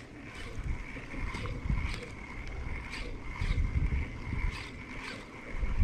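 Spinning reel being cranked to retrieve a spinner lure, a faint steady whine with a light tick about twice a second. Low gusts of wind rumble on the microphone.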